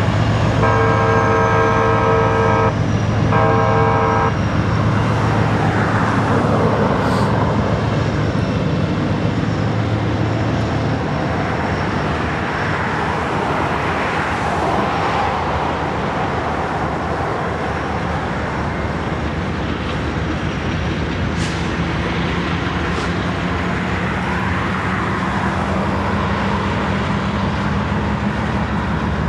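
Diesel freight locomotive's multi-chime horn sounding a long blast and then a shorter one in the first few seconds, followed by the train rolling past: a steady rumble of the locomotives' engines and the wheels and cars going by.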